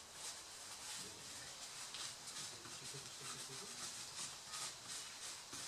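Cloth rubbing on a laptop motherboard's chips in quick, repeated strokes, wiping off old thermal paste.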